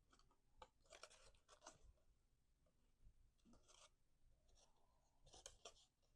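Near silence with faint rustles, crinkles and light taps of cardstock being handled, folded and pressed together while gluing a paper box.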